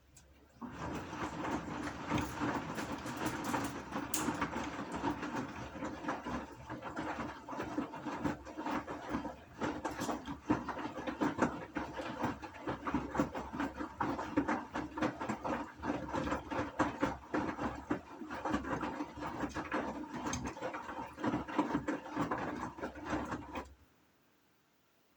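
Gorenje washing machine running: a dense mechanical rattling and clicking that starts about half a second in, holds steady, and cuts off abruptly near the end.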